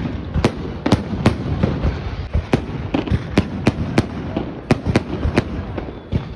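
Fireworks display: a rapid, irregular run of sharp bangs from bursting aerial shells, about two to three a second, over a steady low rumble.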